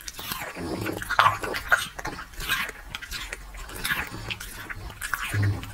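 A grey pit-bull-type dog chewing food hand-fed to it, with wet smacking bites and chomps coming in quick, irregular clusters.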